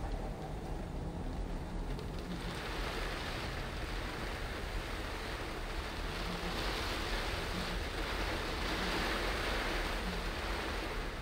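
Heavy rain on a moving car and tyres hissing on the wet road, heard from inside the car over a steady low road rumble. The hiss swells about two seconds in and is loudest near the end.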